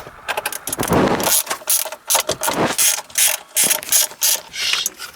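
Ratchet wrench clicking in quick strokes as the old shifter's mounting bolts are undone.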